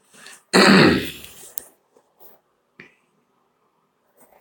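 A person clearing their throat once: a short faint lead-in, then the main burst about half a second in, fading within a second.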